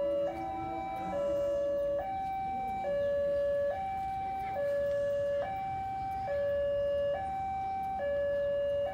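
Railway level-crossing warning alarm, an electronic two-tone signal stepping evenly between a lower and a higher note, each held a little under a second. It warns that a train is approaching the crossing.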